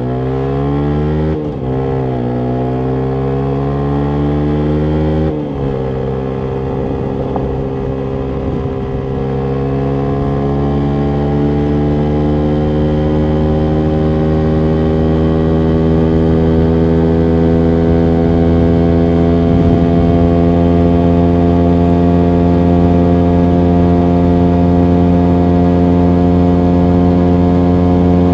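Yamaha MT125's single-cylinder four-stroke engine through a full Akrapovic exhaust, accelerating. The revs climb and drop briefly twice in the first six seconds as it is shifted up, then rise slowly and hold high and steady.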